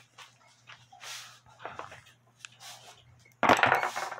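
Hard objects being handled and knocked about on a workbench: faint scrapes, then a louder, dense clatter near the end. A low steady hum runs underneath.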